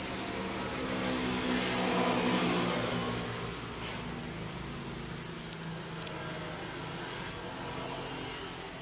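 An engine hum that swells over the first two seconds and then slowly fades, like a vehicle passing. Two sharp small clicks come a little past halfway, from the small metal parts of the tool being fitted together by hand.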